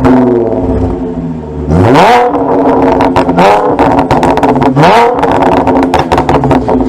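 Audi S4 engine blipped up in three quick revs, its exhaust popping and crackling on the overrun after each rev. The pops come from a tune set up for pops and crackles, through test pipes in place of the catalytic converters, a MagnaFlow X-pipe and an AWE Touring exhaust.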